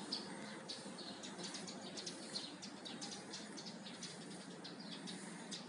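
Outdoor ambience picked up by a smartphone's microphone: many quick, high bird chirps over a steady low background rumble.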